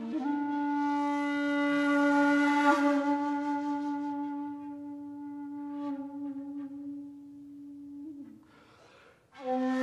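Background music played on a wind instrument: a single long held note that slowly fades after about eight seconds. After a brief pause, a new note starts near the end.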